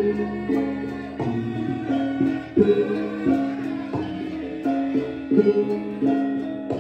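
Javanese gamelan music for Lengger dance: ringing struck metal notes in a steady melodic pattern, with drum strokes.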